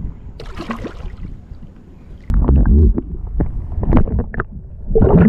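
Muffled sloshing and gurgling of river water heard through a submerged microphone as a smallmouth bass is let go underwater. The sound is a low rumble with scattered knocks and clicks, jumping to a heavy surge about two seconds in and swelling again near the end.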